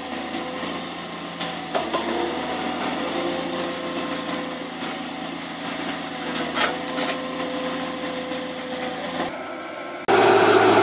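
Valmet tracked forestry harvester's engine and hydraulics running, heard from inside the cab: a steady hum with a held hydraulic whine and a few knocks as the rake-fitted harvester head works the brush and soil. About ten seconds in the engine sound turns abruptly louder.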